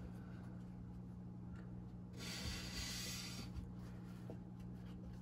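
Steel lathe tool dragged flat across wet 600-grit sandpaper on glass: one scraping stroke about two seconds in, lasting just over a second, over a faint steady low hum.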